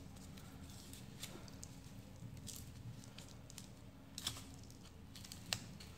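Paper of a machine-filled cigarette tube being torn open by hand: faint rustling of paper and tobacco with a few small crackles, and a sharp tick about five and a half seconds in.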